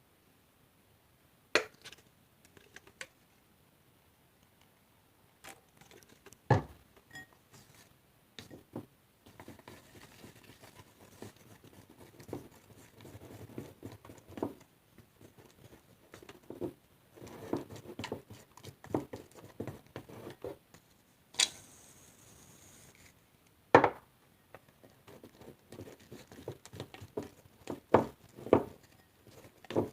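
Fluffy slime being mixed and squished, with stretches of soft sticky crackling broken by sharp clicks and knocks. A short hiss comes about two-thirds of the way through.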